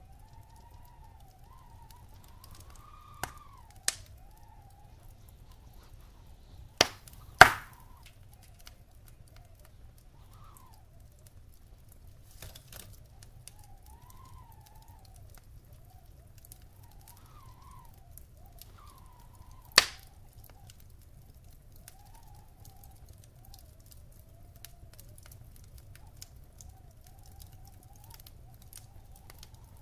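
Wood fire crackling in a fireplace: sharp pops about three and four seconds in, two louder ones around seven seconds, and another near twenty seconds, over a steady low rumble and a faint wavering whistle.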